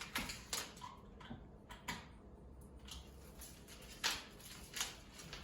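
Christmas tree branches rustling and clicking as a cat climbs in it: a few scattered light clicks and rustles, the loudest about four seconds in.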